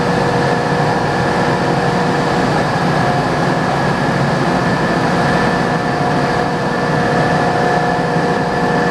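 Mazak M5 CNC lathe powered up and running: a steady, even machine hum with a few steady whining tones held throughout.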